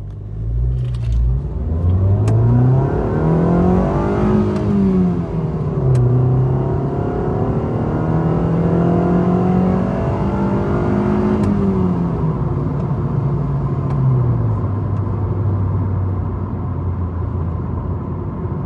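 A 2014 Mazda2's 1.5-litre four-cylinder engine heard from inside the cabin under full throttle. The revs climb, drop at a gear change about five seconds in, climb high again, then fall away about twelve seconds in to a steady cruise. The clutch holds with no slip under full load.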